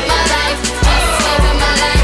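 Hip hop music with a steady, heavy beat.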